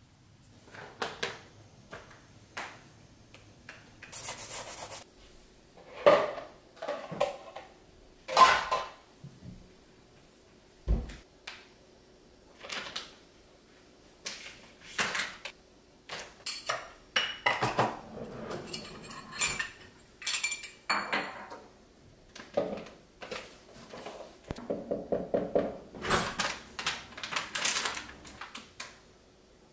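Dishes and kitchen utensils being handled on a counter: scattered clinks, knocks and scrapes, a dull thump about eleven seconds in, and a quick run of rapid taps near the end.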